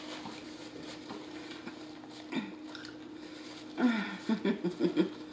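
Quiet mouth sounds of a person chewing a burger, then near the end a quick run of short hummed "mm" sounds of enjoyment through a full mouth, over a faint steady hum.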